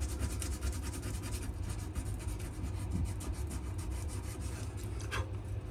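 Rapid, evenly repeated back-and-forth rubbing strokes on a Wenge and maple knife handle, over a steady low hum.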